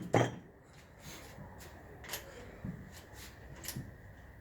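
A sharp clink just after the start, then faint, scattered taps and rustles of small metal engine parts and tools being handled.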